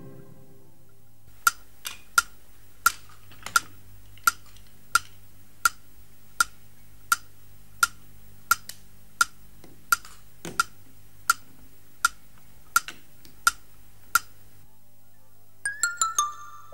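Steady clock-like ticking: a sharp tick with a short ringing tone about three times every two seconds, some nineteen ticks in all, over a low hum, with a few fainter clicks in between. Near the end the ticking gives way to a short descending run of musical notes.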